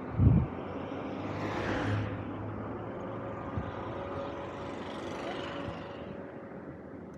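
Street traffic heard while riding through a city street, with vehicles passing by in two rising and falling swells. A short, loud low thump comes just after the start.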